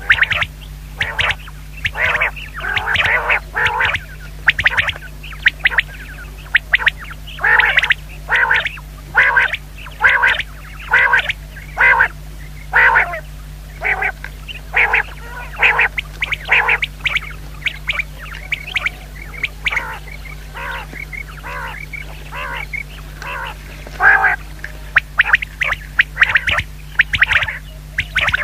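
Common quail calling over and over in short, harsh notes, about one or two a second, with a quieter lull in the middle. A steady low electrical hum runs underneath.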